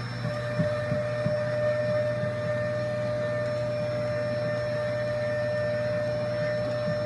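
Vacuum cleaner running with a steady high whine as its wand and hose suck dust out of a forklift's wiring compartment, with a few light knocks of the wand near the start.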